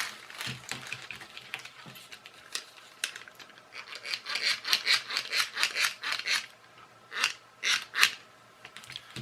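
Rubbing and scraping from handling a car door lock actuator and its packaging: scattered strokes at first, a quick run of short scrapes in the middle, and three sharper ones near the end.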